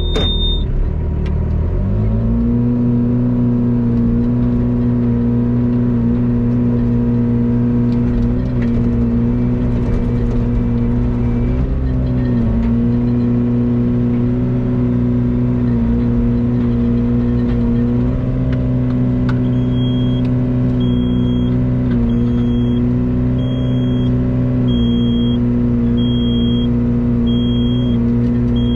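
Excavator's diesel engine running steadily after its throttle is raised about two seconds in. In the last third an electronic warning beeper sounds about once a second over it.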